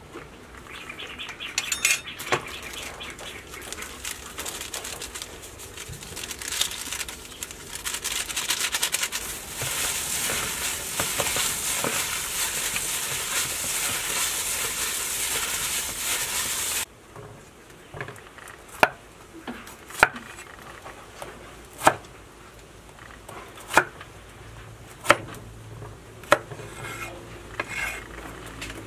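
A hand covered in a plastic bag kneading seasoned minced pork in a bowl: steady rustling of the plastic with the squish of the meat. The sound cuts off suddenly after about seventeen seconds, and a cleaver then cuts bitter gourd on a wooden chopping board, about seven single knocks one to two seconds apart.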